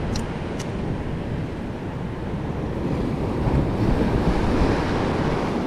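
Ocean waves washing against the shore, with wind buffeting the microphone; a wave surges in louder just past the middle. Two short clicks sound near the start.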